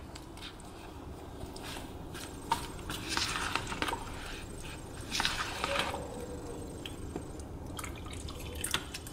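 Steel spoon stirring a thick, wet semolina and curd batter in a plastic bowl: soft wet stirring with scattered light scrapes and taps of the spoon, a little louder a few seconds in.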